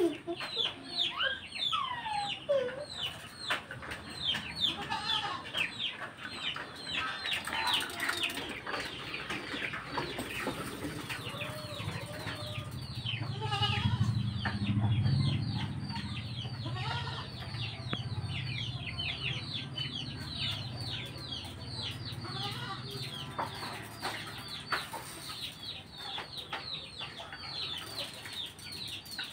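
Many small birds chirping fast and without pause, a dense run of short, high, falling chirps. A low rumble swells up and dies away in the middle.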